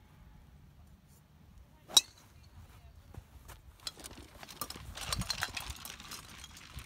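A golf driver strikes a ball off the tee once, a single sharp crack about two seconds in. From about four seconds in, golf clubs clatter and clink in a carry bag as it is grabbed and carried off at a run, with rapid footsteps.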